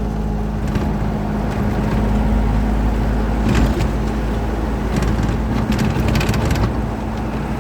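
A truck's engine runs steadily under way, a low drone and rumble heard from inside the cab. Short bursts of clicking rattles come about three and a half seconds in and again around five to six and a half seconds in.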